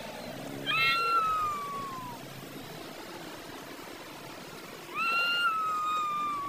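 Domestic cat giving two long, drawn-out meows about four seconds apart, each held for well over a second and sliding slowly down in pitch: the complaining call of a cat contesting food with another cat.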